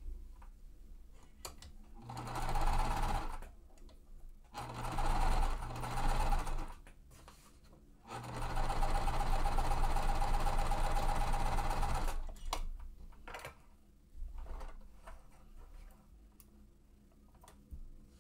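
Sewing machine stitching a seam joining two quilt triangles, in three runs: a short one about two seconds in, a second of about two seconds, then a steady four-second run. Small clicks of handling come between the runs and after them.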